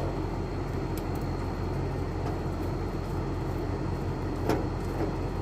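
Air-conditioning unit running with a steady electrical hum, with a couple of faint clicks.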